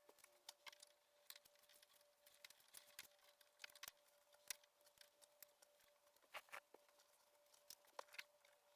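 Faint handling sounds of show ribbons being taken down and moved to a rack: scattered light clicks and rustles, over a faint steady hum.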